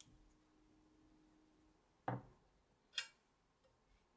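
Two small handling sounds on a workbench: a dull knock about two seconds in, then a sharp click about a second later, as a glass dropper bottle is set down and a steel palette knife touches a glazed ceramic tile.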